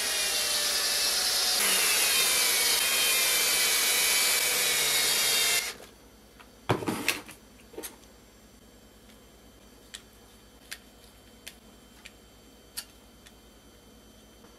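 Metabo cordless drill-driver spinning a bolt into a 3D-printed clamping block, running steadily for about six seconds and then stopping abruptly. A knock follows, as the drill is set down on the wooden bench, then a few faint clicks of parts being handled.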